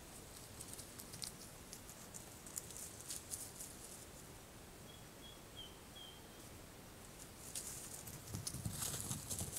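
Light crackling and rustling in forest undergrowth, growing louder with some dull thumps near the end. A few short, faint bird chirps come about halfway through.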